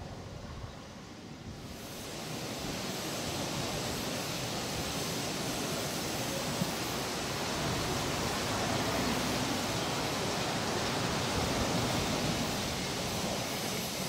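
Steam locomotive No 2 "Prince" standing and blowing off steam: a steady, loud hiss that starts abruptly about two seconds in, after a fainter low rumble.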